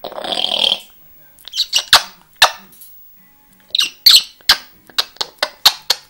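A grey parrot calling. It opens with a short harsh hiss-like squawk, gives a few quick clicks and short calls, then makes a steady run of sharp clicks, about three a second, near the end.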